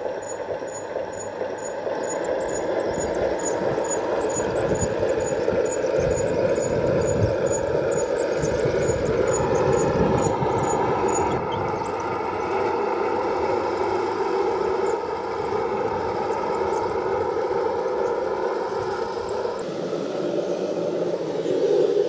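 An RC Panzer III tank model driving over rough ground: a steady mechanical run of its drive motors and clattering tracks, mixed with an engine-like rumble. A faint, regular high tick, about two a second, runs through the first half.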